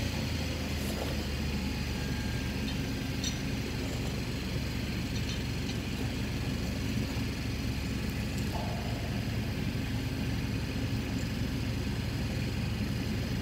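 An engine running steadily with a low, unbroken drone and a few faint ticks.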